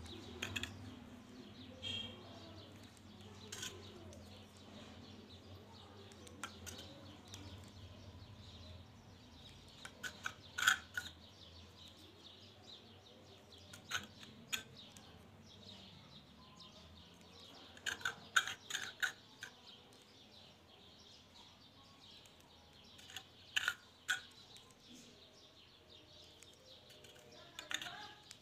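Faint clicks and light scrapes of the metal parts of a Chinese B2 spring air rifle being handled during reassembly, with scattered short high chirps among them.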